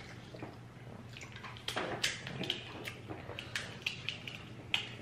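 Seafood-boil eating sounds: crab legs being cracked and picked apart by hand, with wet chewing and smacking, heard as a scattering of short, sharp cracks and clicks.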